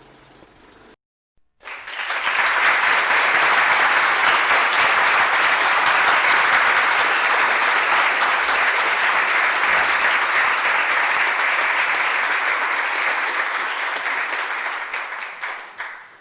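Crowd applauding: a dense round of clapping that starts about a second and a half in, holds steady, and fades out near the end.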